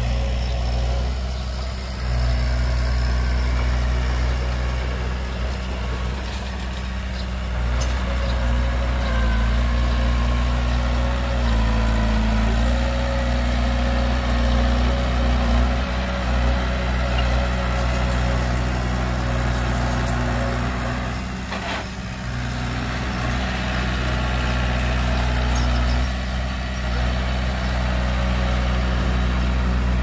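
Heavy diesel engine of earthmoving machinery running steadily at a low pitch, its level shifting slightly a few times.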